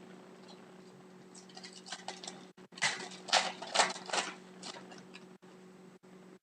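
Cardboard trading cards being handled and flipped through: a string of short papery flicks and rustles, busiest in the middle, over a faint steady electrical hum.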